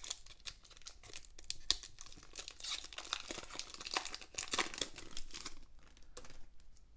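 Foil wrapper of a Pokémon TCG booster pack being torn open and crinkled by hand, a dense run of sharp crackles. It goes much quieter after about five seconds as the cards are drawn out.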